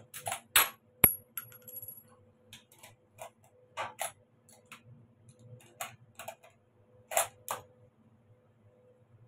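Metallic clicks and knocks of a scoped .303 Lee-Enfield rifle being handled and readied at the bench: a sharp metal click with a brief ring about a second in, then scattered lighter clicks and taps, with a louder pair near the end. A faint steady hum runs underneath.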